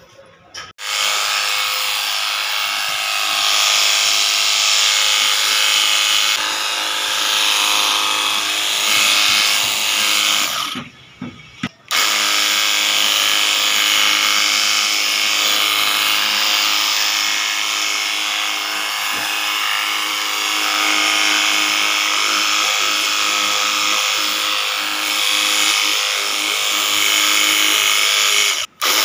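Battery-powered high pressure washer running with a foam-cannon bottle, its small motor and pump whining steadily under the hiss of the foam spray. It cuts out about ten seconds in, blips briefly, starts again about a second later, and drops out for a moment near the end.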